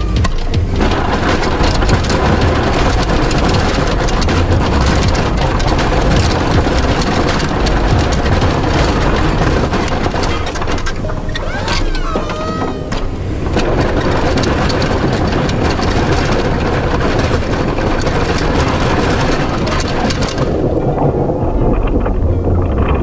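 Snowplow blade pushing heavy wet snow, heard up close from the blade: a loud, continuous rumble and rush with snow spraying against the microphone. Near the end the hiss drops away, leaving the low rumble.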